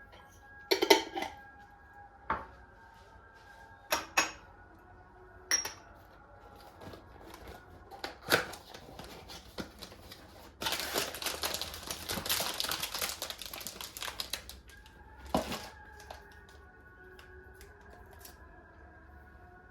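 Handling noises: several separate sharp knocks or clacks of objects being set down, and in the middle a few seconds of dense crackling rustle, like a wrapper or bag being handled.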